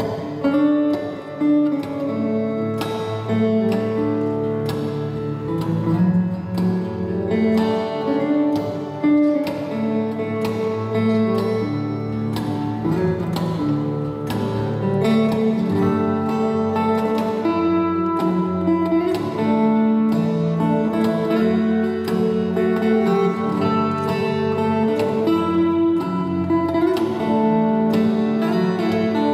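Steel-string acoustic guitar playing an instrumental piece, plucked notes ringing over sustained bass notes, with frequent sharp plucked attacks.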